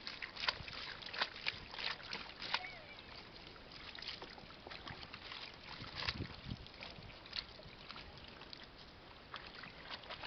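Water splashing and sloshing in a plastic washbasin as clothes are scrubbed and wrung by hand, with many irregular sharp splashes.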